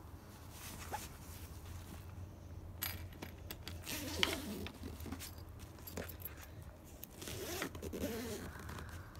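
A zipper being drawn along the front panel of a fabric pet-carrier cover, with fabric rustling, in two runs: one about three seconds in and one about seven seconds in.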